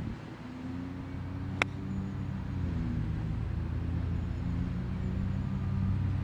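A single sharp click of a 58-degree wedge striking a golf ball on a chip shot, about one and a half seconds in, over a steady low background rumble.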